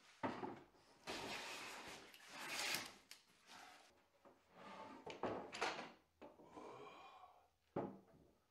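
Wooden boards being handled on a workbench: a sharp knock just after the start, several stretches of wood sliding and rubbing, and another sharp knock near the end.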